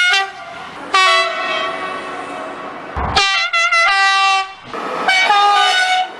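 French trains' horns sounding in a series of blasts from different trains, cut one after another: a short blast at the start, a long held blast from about one to three seconds in, then a quick run of short blasts and another blast near the end. A sharp thump sits at the cut about three seconds in.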